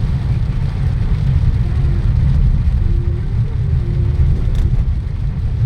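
Steady low rumble of a moving road vehicle, heard from inside it, with a faint click about four and a half seconds in.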